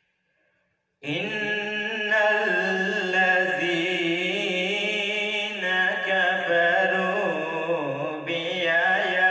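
A male voice chanting Quranic recitation (tilawat) in a melodic, drawn-out style. It begins about a second in after near silence and goes on in long, wavering held notes.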